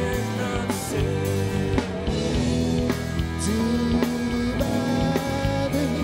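Rock band playing live: electric guitars, bass and drum kit, with long held melody notes over a steady beat.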